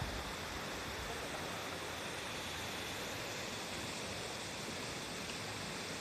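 Steady, even rush of a shallow mountain river running over stones, with a waterfall upstream.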